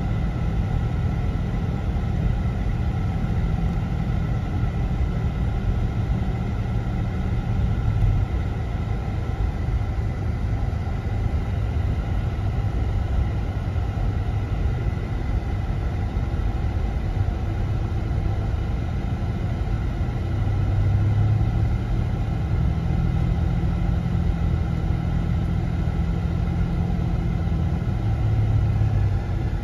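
Steady low rumble of a car driving, engine and road noise heard from inside the cabin, swelling briefly a few times.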